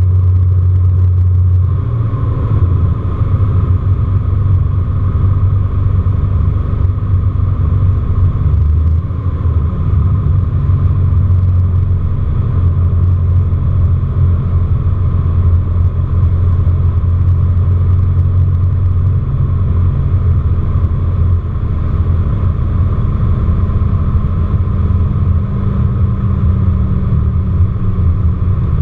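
Socata Rallye 235C's six-cylinder boxer engine and propeller droning steadily, heard from inside the cabin during the descent to land. Its pitch drops about two seconds in and again around ten seconds, then sinks slowly as power is eased back.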